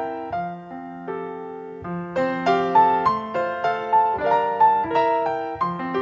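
Background piano music: a gentle melody over held chords, sparse and quieter at first, then fuller from about two seconds in.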